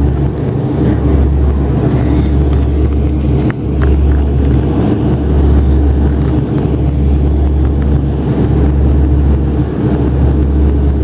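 Cabin drone of a Dash 8 turboprop's engine and propeller heard beside the nacelle in flight: a steady, loud low hum with a constant rushing noise above it.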